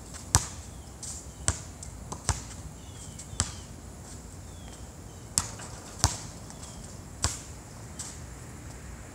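A basketball bouncing on an outdoor hard court: about seven sharp, irregularly spaced bounces.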